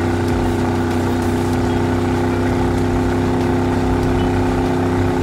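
Cartoon engine sound effect for a truck towing a bus through water: a steady motor running at an even pitch.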